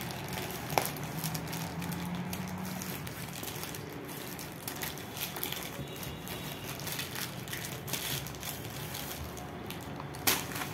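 Clear plastic wrapping crinkling and rustling as it is peeled and pulled off a cardboard box, with a sharp crackle about a second in and a louder one near the end.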